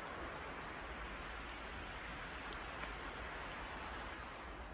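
Falling snow pattering steadily on snow-laden branches and the ground: an even, faint hiss with a few light ticks.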